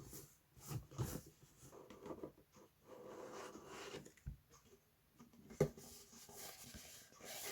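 Faint handling of cardboard watch packaging: soft rubbing and scraping as the box is slid and turned in its sleeve, with scattered light taps and one sharper knock about five and a half seconds in.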